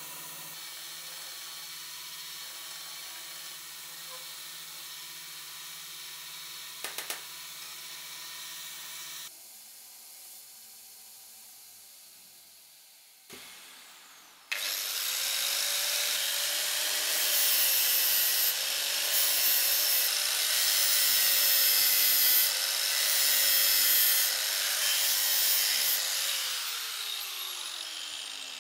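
A handheld power tool working on metal parts: a loud, gritty grinding noise with the motor's pitch wavering under load, then a falling pitch near the end as it spins down. Before it, a quieter steady hum with a couple of light clicks.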